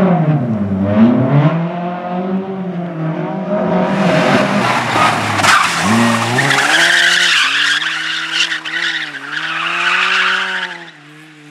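Competition car's engine revving up and down hard. From about four seconds in, its tyres squeal loudly in a long slide over the engine note, stopping abruptly shortly before the end.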